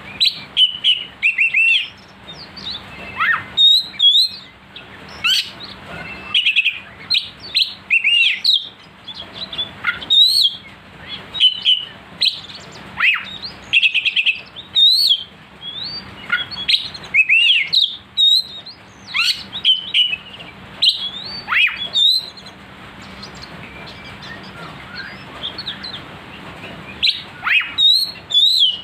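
Oriental magpie-robin (kacer) in full, sharp-toned song: a rapid run of loud whistles, slurred notes and chirps, with a brief lull about three-quarters of the way through. A song of this kind is played to fire up other kacer and set them singing.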